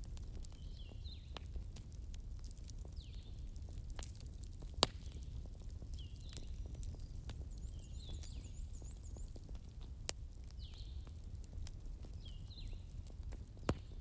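Campfire crackling, with a few sharp pops that stand out: about five seconds in, around ten seconds, and near the end. Over it a bird repeats a short call of falling notes every second or two, and a second bird gives a brief high trill around the middle, all over a steady low rumble.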